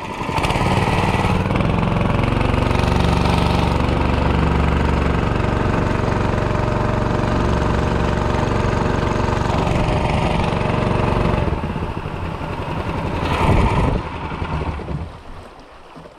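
Small outboard boat motor running steadily at speed, with water rushing past the hull. It is throttled back about twelve seconds in, surges briefly, then falls quiet near the end as the boat slows.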